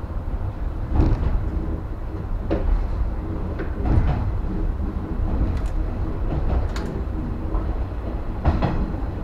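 JR West 115 series electric train running along the track, heard inside the front car: a steady low rumble, broken by a few sharp clacks from the wheels and car body.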